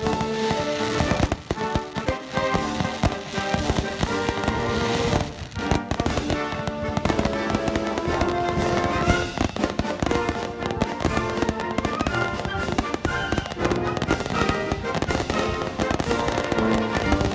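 Aerial firework shells bursting and crackling in a rapid, continuous barrage, with background music playing alongside.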